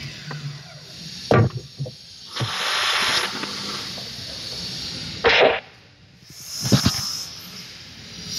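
Scattered knocks and short scraping, hissing noises of lumber being handled on a miter saw's table, with the saw not running.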